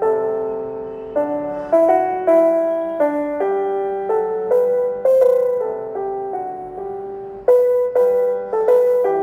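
Piano music: a slow melody of struck notes and chords, each note fading after it is played.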